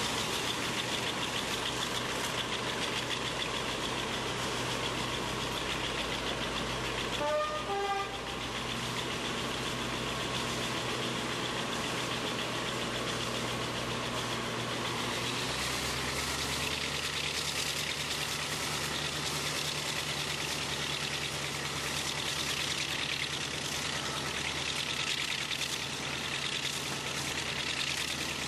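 Class 35 Hymek diesel-hydraulic D7076's Maybach MD870 V16 diesel engine working steadily under way, with wheel and wind noise. A short horn toot sounds about seven seconds in, and the engine note climbs to a higher pitch about fifteen seconds in.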